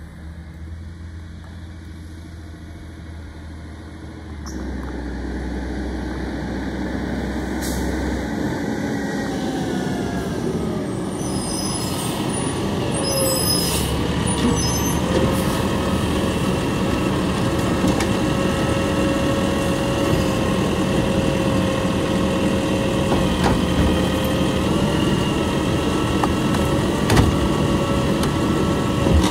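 Garbage truck's diesel engine growing louder as it pulls up, with short air-brake hisses about halfway through, then running steadily at the curb with a constant whine.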